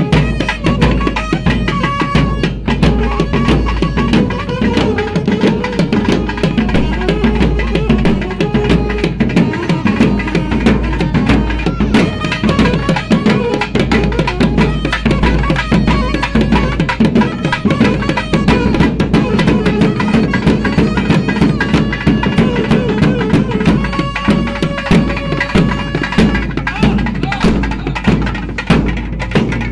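Folk drum band playing: fast, dense drumming on slung barrel drums and a large flat bass drum, with a saxophone holding long notes of a melody over it.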